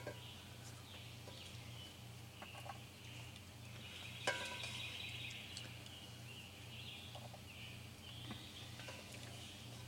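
Woodland ambience: a steady, fairly faint high chorus of calls from the surrounding trees. About four seconds in comes a single sharp clack, the loudest sound, as a wooden spoon knocks against the cast-iron Dutch oven while beans are dished out.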